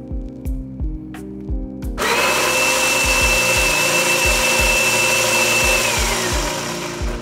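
Baratza Sette 270 burr grinder running for about four seconds, starting about two seconds in, with a steady high whine that falls away as the motor spins down. It is grinding just a few beans to purge old, stale grounds from the burrs.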